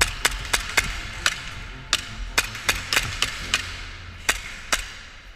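Airsoft pistol firing in quick, uneven shots, about a dozen sharp cracks in five seconds, thinning out near the end.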